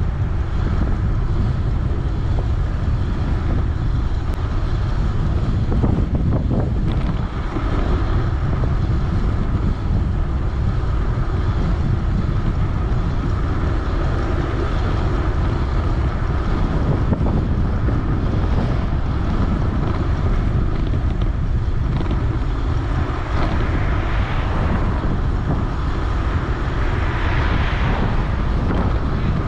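Wind rushing over the microphone of a camera riding on a 3000 W electric bike at speed, a steady loud rush with no engine note.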